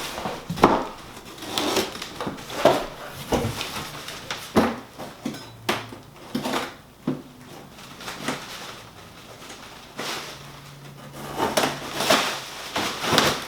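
Large cardboard shipping box being cut and pulled open by hand: irregular knocks, scrapes and rustles of cardboard and packing.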